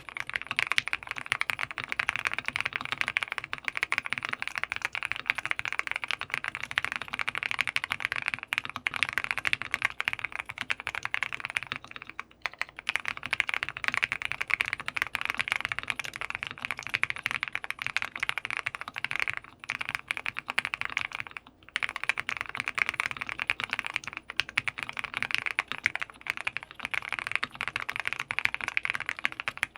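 Continuous fast typing on a Jelly Epoch mechanical keyboard with a polycarbonate plate, TECSEE Tiffany Blue switches lubed with Krytox 205g0 and Hammerworks CRP R4 keycaps: a dense stream of keystrokes, broken by short pauses about 12, 19 and 21 seconds in.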